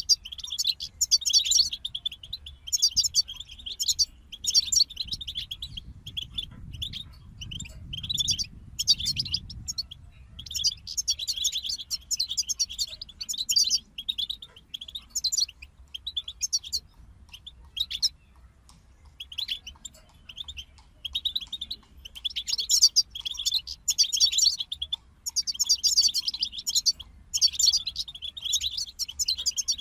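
European goldfinches singing: fast, twittering, tinkling phrases in bursts with short pauses, thinning out for a few seconds midway before picking up again.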